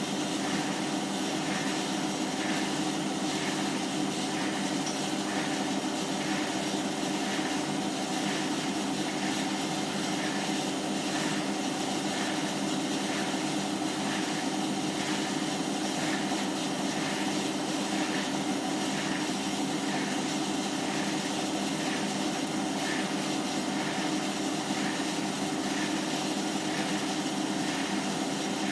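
Hotpoint washing machine spinning, a steady hum from the drum with a faint squeaking and scraping noise that repeats at an even beat, a fault that shows up only when it spins on the 30 °C programme.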